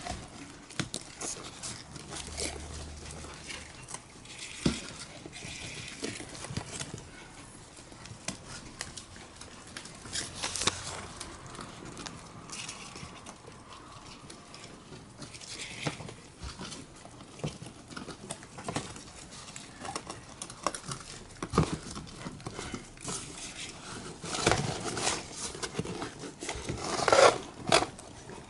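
A crowd of golden hamsters scrabbling and jostling on newspaper as they eat, with paper rustling and crinkling and many small clicks and scratches. It grows louder and busier in the last few seconds.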